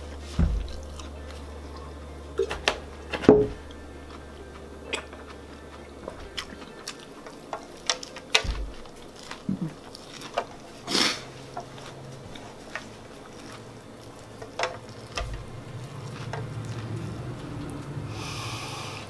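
Scattered clicks, taps and the odd thump of a fork and fingers picking at a large serving tray, with bits of chewing in between.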